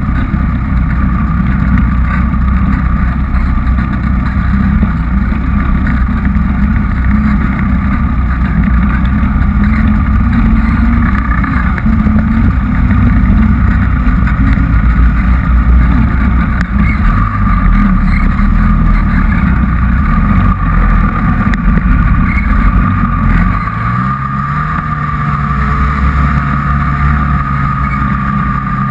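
Turbocharged 2013 Polaris Dragon snowmobile's two-stroke engine running hard under way, with a steady high whine over it. About 24 seconds in the throttle eases and the engine settles to a lower, steadier note.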